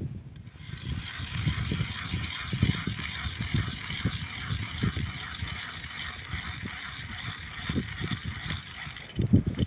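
Hand ice auger cutting through ice, a steady rasping grind that starts about half a second in, with low gusts of wind buffeting the microphone.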